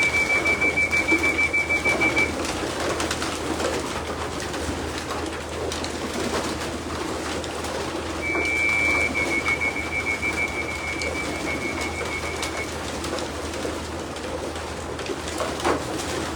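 A loft full of racing pigeons cooing as the flock traps in. A steady, high, pulsing beep sounds for about two seconds at the start and again for about four seconds in the middle.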